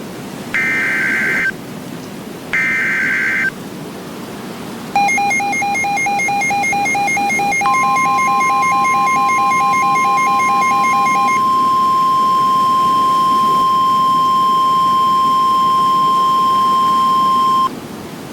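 Emergency Alert System SAME header: two warbling digital data bursts, each about a second long. Then a rapidly pulsing two-pitch electronic beeping alarm starts, joined about 8 s in by the steady NOAA Weather Radio warning alarm tone. The beeping stops about 11 s in, and the steady tone runs on for about 10 s before cutting off sharply, announcing a warning.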